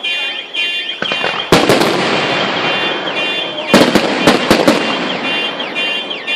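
Fireworks display: a loud aerial shell burst about a second and a half in, then a rapid cluster of bangs near the end, with crackling between. A repeating electronic alarm tone cycles underneath, about twice a second.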